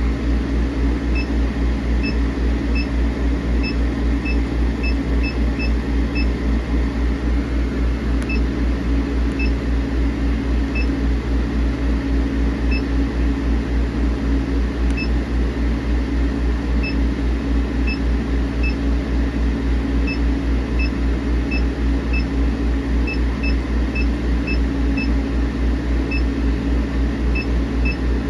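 Short electronic beeps at uneven intervals from key presses on a laser cutter's control panel as settings are adjusted, over a steady low machine hum.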